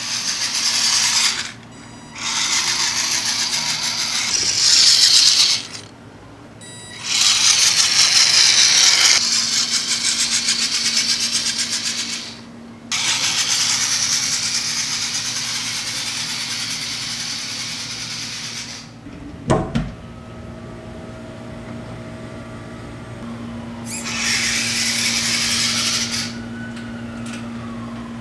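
Electric motor and gears of a Vaterra Slickrock RC rock crawler whining in repeated bursts of throttle as it drives over tile. There is a sharp knock about two-thirds of the way through.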